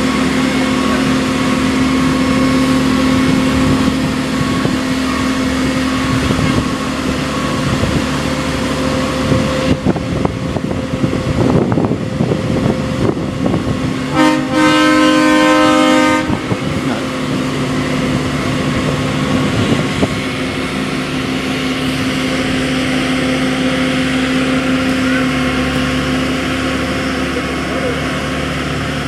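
Marine travel lift's engine running steadily as it carries a hauled-out yacht, with a horn sounding for about two seconds midway.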